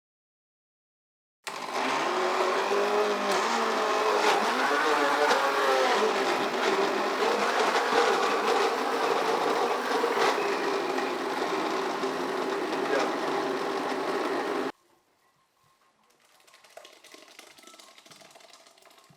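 Electric kitchen blender motor running, puréeing tomatoes, peppers, onions and garlic, its pitch wavering as the load shifts. It starts suddenly about a second and a half in and cuts off suddenly about thirteen seconds later.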